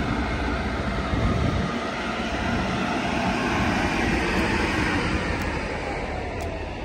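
Amtrak Capitol Corridor train hauled by two Siemens SC44 Charger diesel locomotives pulling away past the platform, a steady rumble of engines and wheels that fades slightly near the end.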